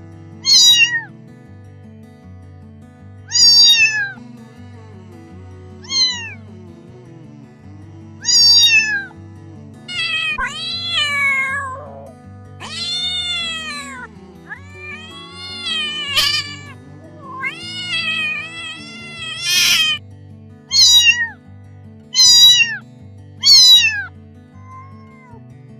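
A cat meowing over and over, about a dozen meows: short ones at first and at the end, longer drawn-out ones with rising-then-falling pitch in the middle. Soft background music with a steady repeating beat plays underneath.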